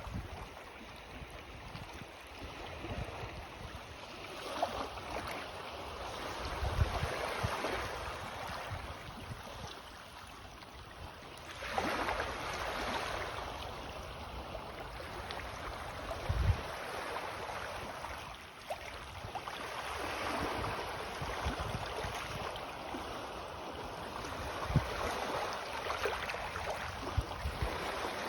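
Small sea waves of an incoming tide washing onto the shore, a steady wash that swells and ebbs every few seconds and is loudest about twelve seconds in. Occasional low thumps sound now and then.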